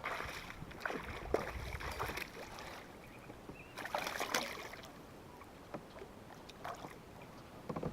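Irregular knocks, clicks and short water swishes from a fishing kayak and the gear being handled on it, busiest in the first couple of seconds and again about four seconds in.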